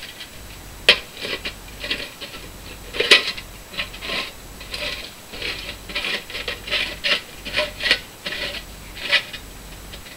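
Hand-crank can opener cutting around the rim of a steel food can: repeated short rasping grinds, about two a second, one for each turn of the crank, with a sharp click about a second in.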